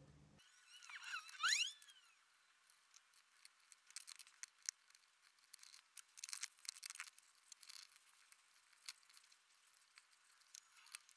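Faint small metallic clicks and ticks of steel tweezers handling lock pins, drivers and springs against a brass euro cylinder, with a brief squeaky chirp about a second in.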